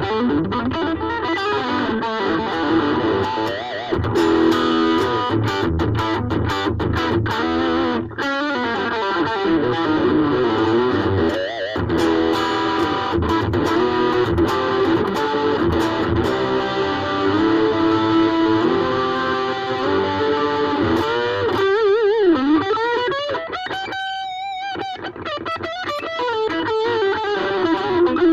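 Ibanez AXS42 electric guitar, rewired with solid-core vintage wire, played through an amp with some distortion: single-note lines and riffs, with bent, wavering notes near the end.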